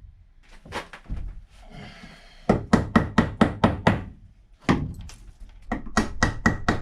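Hammering: quick runs of sharp blows, about five a second, with short pauses between the runs.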